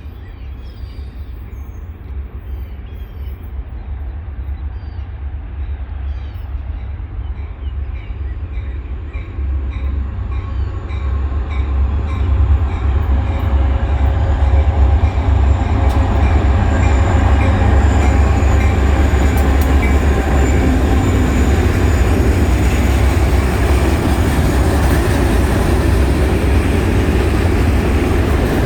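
Freight train led by two diesel locomotives approaching and drawing level, the low engine rumble and the wheel-and-rail noise growing steadily louder over the first half and then holding loud.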